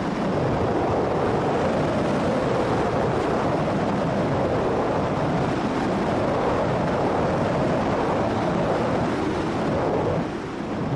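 Loud, steady wind rush over the microphone of a paramotor in a steep banking turn, with the motor's drone underneath; the rush eases about ten seconds in.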